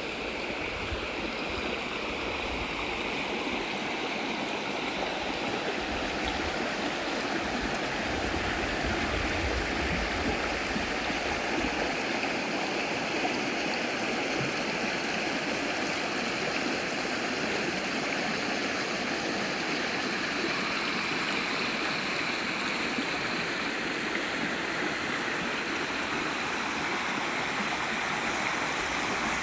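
Mountain-fed river flowing, a steady rushing of water.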